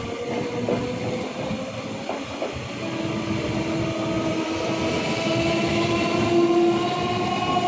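Electric multiple unit (EMU) local train running past at speed, its wheels clattering on the rails. A steady pitched tone comes in about three seconds in.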